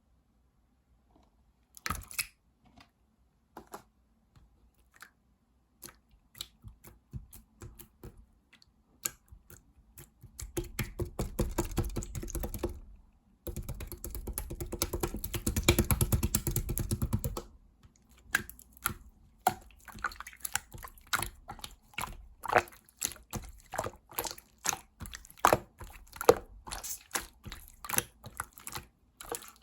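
Mint-coloured slime being squeezed and kneaded by hand, giving quick sticky clicks and pops. The clicking thickens into a steady crackling run from about a third of the way in until a little past the middle, then goes back to separate clicks.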